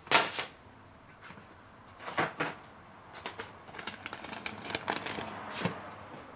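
Handling noises: scattered sharp clicks and knocks with light rustling, from a small part and its packaging being handled. The loudest click comes right at the start, another about two seconds in, and a run of small clicks follows.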